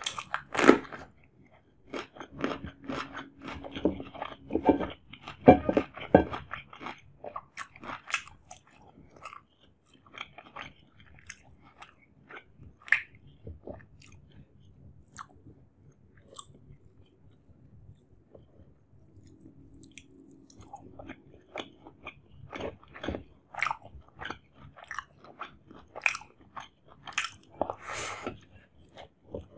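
Close-miked chewing and biting of chicken dum biryani eaten by hand: wet mouth smacks and crunchy clicks in an irregular run, quieter through the middle and louder again near the end.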